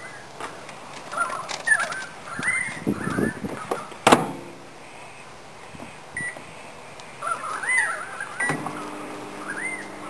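LG microwave oven: the door shuts with a sharp clack about four seconds in, a short keypad beep sounds about two seconds later, and near the end the oven starts with a click and then runs with a steady hum. Birds chirp throughout.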